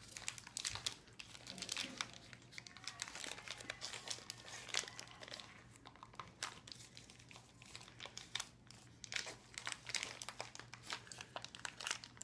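A food package's wrapper being pulled and torn open by hand, crinkling and rustling in many small irregular crackles.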